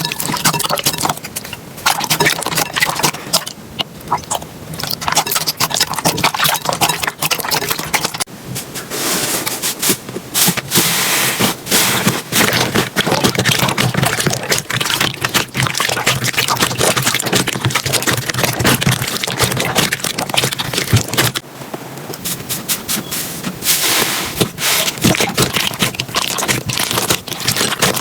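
Slime being squished and pressed by hand, making dense crackling and popping with many small clicks. The texture changes a couple of times, with a short lull about 21 seconds in.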